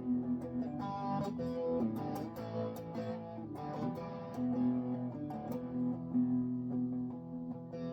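Music Man Axis Sub electric guitar being played: picked single notes and chords over a held low note that keeps coming back.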